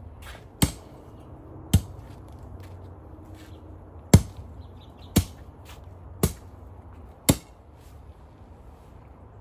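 Hand tamper striking down on freshly laid paver base, six sharp strikes about a second apart with a longer gap after the second, compacting the base.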